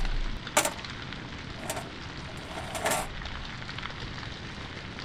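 Compressed air hissing: a loud rush that tails off over the first half-second, then three short hisses at roughly one-second intervals.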